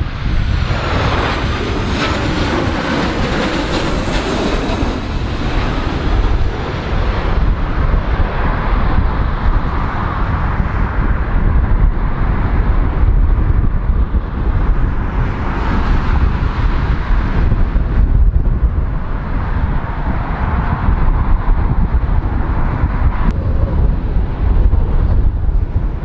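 Strong gusty wind rumbling on the microphone throughout. In the first several seconds a Boeing 737's jet engines pass low overhead on approach, their whine falling in pitch. Later, fainter jet noise from airliners landing in the crosswind rises and falls under the wind.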